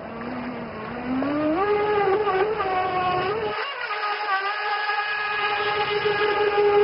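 An RC jet sprint boat's 3000KV brushless electric motor runs on a 3S LiPo, driving the jet pump, with a high whine. The pitch climbs over the first second or two as the boat speeds up, then holds steady at speed.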